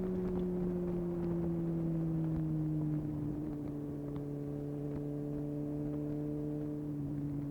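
Suzuki GSX-S750 inline-four engine through a Yoshimura SQ11 exhaust with no dB killer, running at steady revs that slowly fall, as when rolling off the throttle.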